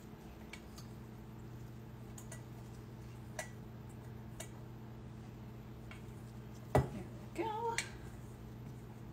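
Quiet kitchen work at a glass-bowl double boiler on an electric cooktop: a faint low hum that starts about a second in as the cooktop's element comes on, with scattered light ticks. Near the end comes a sharp knock, then a short rising squeak.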